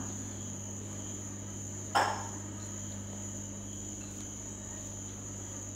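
Steady background of a high-pitched continuous tone over a low hum, with a single knock about two seconds in.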